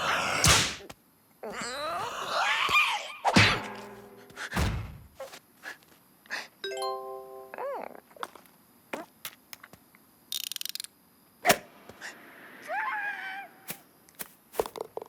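A busy run of cartoon sound effects over music: knocks and thuds, a whoosh at the start, and a bell-like ding about seven seconds in. Short squeaky, sliding character vocalizations come in twice, around two and thirteen seconds in.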